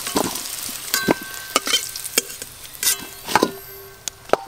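Potatoes sizzling in hot mustard oil in a wok as a metal spatula lifts them out. A series of sharp clinks comes from the spatula striking the wok and a steel bowl, and the bowl rings briefly after some of them. The sizzle fades toward the end.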